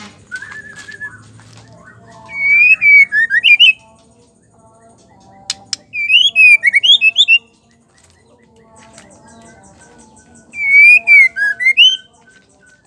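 White-rumped shama singing: three loud bursts of rich, quickly gliding whistled phrases, each about a second and a half long. A short softer whistle comes near the start, and a single sharp click comes just before the second burst.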